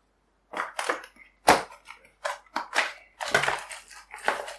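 Irregular rustling, scraping and knocking of objects being handled and moved, in a quick uneven series of short noisy bursts.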